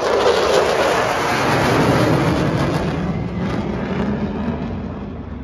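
Jet noise from USAF Thunderbirds F-16 Fighting Falcons passing overhead, a loud roar that drops in pitch and slowly fades as the jets move away.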